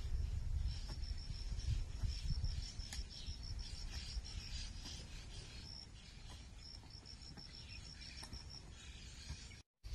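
An insect chirping in fast, even runs of high, pulsed notes, about six a second, with a short break past the middle. Under it are a low rumble and soft dull knocks from a hoe chopping into loose soil, loudest in the first few seconds.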